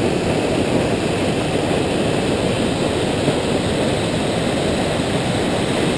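Steady rushing of water pouring down a stepped stone dam spillway and rock falls into a pool.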